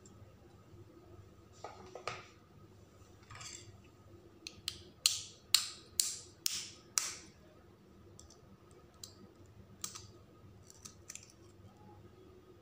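An eggshell being tapped to crack a small hole in it: a quick run of about five sharp taps, about half a second apart, in the middle, with lighter clicks and handling before and after.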